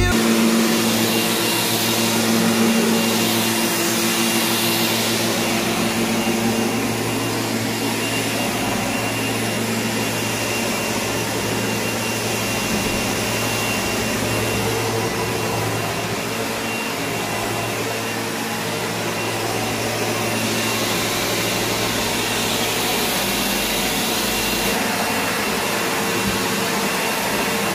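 Upright vacuum cleaner running steadily as it is pushed over carpet, a constant motor drone with a faint high whine; it cuts off suddenly at the very end.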